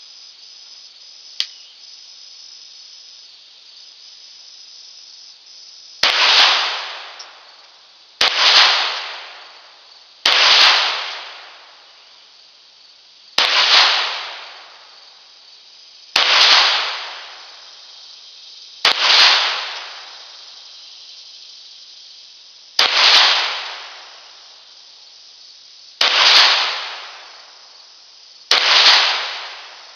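Ruger Mk III 22/45 .22 LR pistol fired nine times in slow, deliberate fire, each shot a sharp crack with a short echoing tail. The pistol cycles every round without a failure to feed. A single small click comes about a second and a half in, and a steady high hiss sits underneath throughout.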